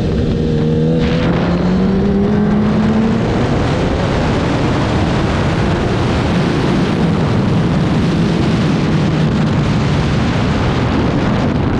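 Racing motorcycle engine running under power, its pitch rising over the first few seconds as it accelerates and then holding fairly steady, with heavy wind rush on the microphone.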